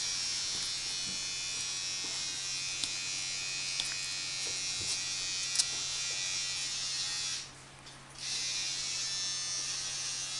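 A steady electrical buzzing hiss with a low hum under it. It cuts out for under a second about three-quarters of the way through, then resumes, with a few faint clicks.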